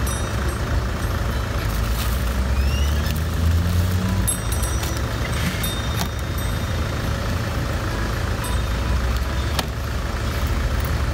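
Steady low rumble of road traffic, a vehicle engine swelling louder for a couple of seconds about three seconds in, with a few light clicks over it.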